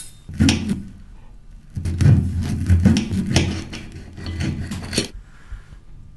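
Knife sawing through a piece of cooked meat on a ceramic plate, the blade scraping against the plate. A short stroke about half a second in, then about three seconds of repeated back-and-forth sawing strokes.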